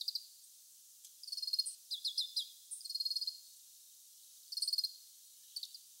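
Oriental greenfinch calling: about five short, high-pitched bursts of rapid trilled twittering, with a run of quick falling notes about two seconds in.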